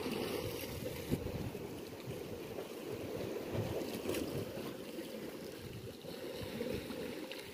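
Steady wind noise on the microphone over the wash of sea waves against the rocky shore.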